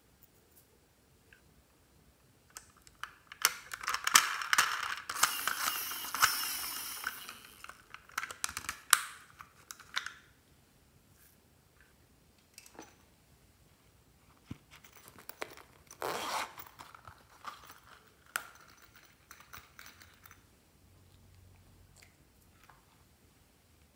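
Small plastic jars and packets of slime add-ins being handled: clicking lids, crinkling and rattling. A dense crinkly rattle runs from about three to eight seconds in, then scattered clicks and taps follow, with another short rustle near the middle.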